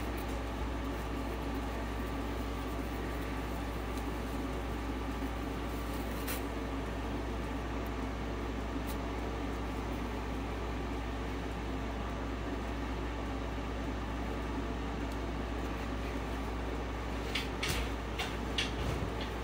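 Steady low hum of indoor background noise, with a light click about six seconds in and a few soft clicks and knocks near the end.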